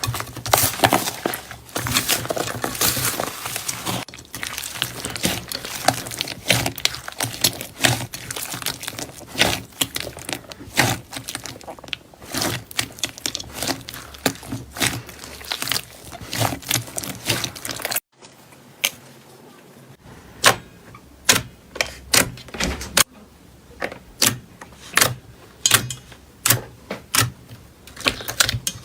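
Slime being handled and pressed, making dense wet crackling and clicking. About two-thirds of the way through, after a brief break, it turns to a regular series of sharp pops, a little over one a second.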